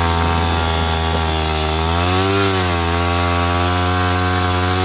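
Yamaha WR250R's single-cylinder four-stroke engine idling steadily, with one short rev about two seconds in that rises and drops back to idle.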